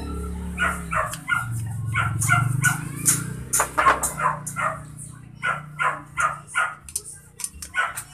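A dog barking repeatedly in quick runs of short barks, with light clicks from metal fan-motor parts being handled.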